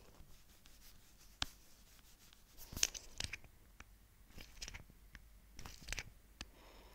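Faint taps and short scratchy strokes of a stylus on a tablet screen as handwriting is erased: a few sharp clicks, with brief clusters of scraping about three seconds in and again near the end.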